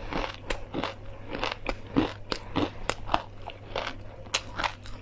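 Crunchy chewing of a mouthful of fried perilla, seeds and chili crisp, with sharp, irregular crunches several times a second.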